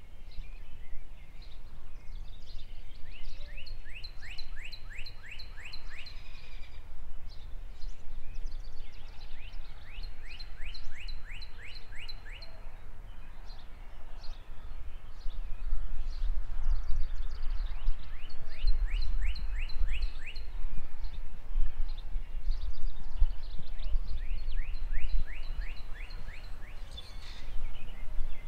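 Back-yard outdoor ambience: a bird repeats a song phrase of about ten quick, evenly spaced notes every several seconds, with fainter, higher chirps from other birds. Under it runs a steady low rumble that grows louder about halfway through.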